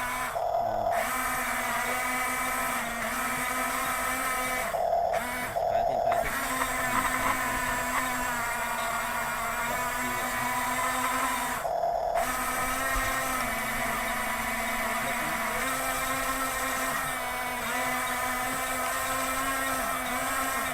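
Electric gear motors of radio-controlled toy construction vehicles whining as they work, the pitch stepping up and down as the motors change load or speed. The whine breaks off briefly four times, and each gap holds a short steady tone.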